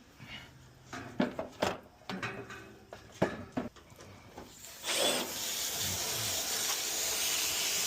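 Metal tools and fittings clicking and knocking as they are handled, then, about five seconds in, a steady hiss of gas or air rushing out starts and keeps going.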